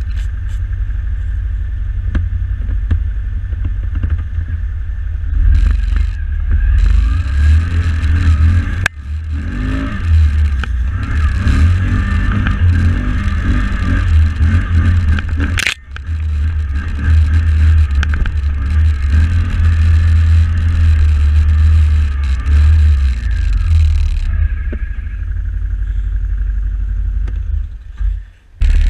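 A new Can-Am 1000R XMR ATV's V-twin engine, still being broken in, running under varying throttle as the machine is ridden. The sound is broken by sudden cuts about 9 and 16 seconds in and drops out briefly near the end.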